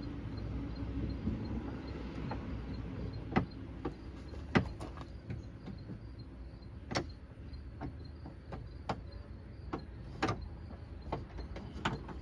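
Scattered sharp clicks and knocks, about a dozen, from a ratchet and bolt being worked against the door handle mechanism inside a car door, over a low steady hum.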